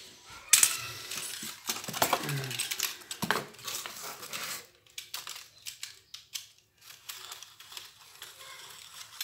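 Cardboard sheet rustling and scraping as it is handled and shifted, with many sharp clicks, loudest for the first four seconds or so; after that, quieter light clicks and scratches as a snap-off utility knife is handled.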